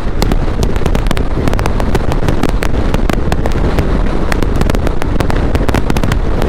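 Wind buffeting the microphone of a camera on a motorcycle moving at road speed: a loud, steady rumble with rapid, irregular crackling pops.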